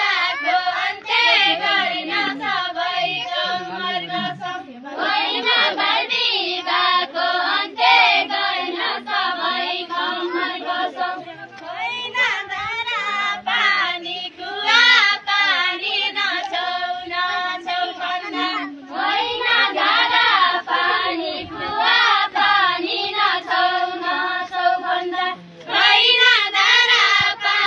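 Group of women and girls singing a Deuda folk song together, unaccompanied, in high voices. The song comes in phrases of several seconds, each followed by a short break about every seven seconds.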